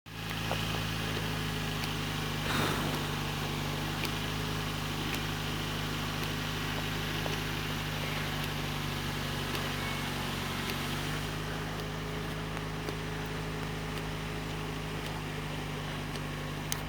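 Honda Civic's engine running steadily at idle, with a brief noise about two and a half seconds in.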